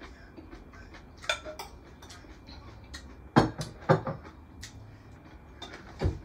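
Tableware sounds during a meal: forks and a serving spoon clinking and knocking against plates and a glass bowl. The knocks are scattered, with the loudest pair about three and a half and four seconds in and a short ringing clink about a second in.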